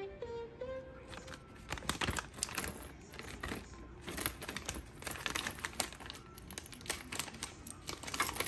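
Clear plastic bag crinkling and small plastic sewing-machine accessories clicking as they are handled, in irregular rustles and taps. A few notes of background music sound in the first second.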